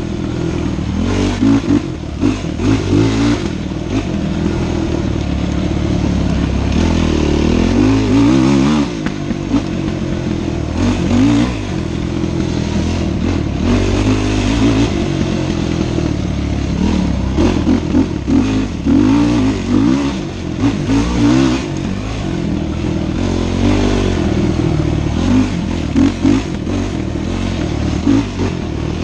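Dirt bike engine being ridden hard, its pitch rising and falling with the throttle the whole time, with knocks and rattles from the bike crossing a rough dirt trail.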